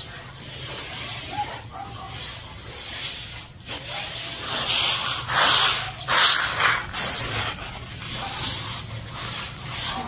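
Hands raking and spreading a layer of unhusked rice grain to dry, a rustling hiss of grain sliding over grain and sacking, loudest about five to seven seconds in.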